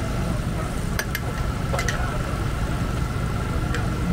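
An engine running steadily at idle as a low hum, with a thin steady whine above it and a few sharp clicks and clacks, two pairs in the first two seconds.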